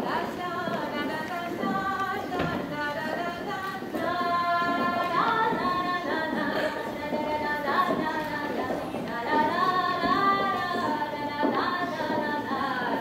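Voices singing a Breton dance tune, the melody moving in held and stepping notes.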